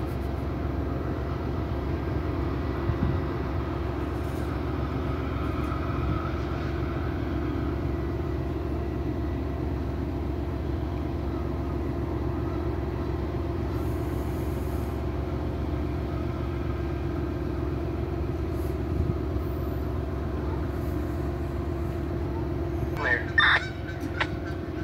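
Diesel locomotives of a stopped Amtrak passenger train idling: a steady low rumble with a constant hum. A short, sharp higher-pitched sound cuts in near the end.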